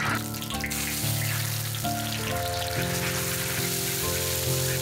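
Hot oil sizzling and crackling in a large iron wok as egg fries in it, with a sharper burst of sizzle in the first half-second. Background music of held notes plays underneath.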